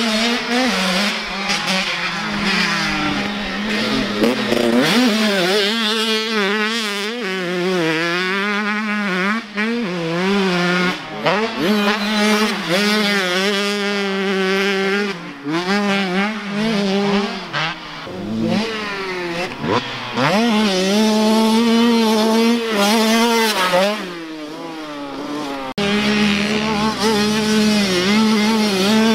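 Motocross dirt bike engine revving hard, its pitch repeatedly climbing and dropping as the rider accelerates and backs off around a sand track, with a brief quieter stretch near the end.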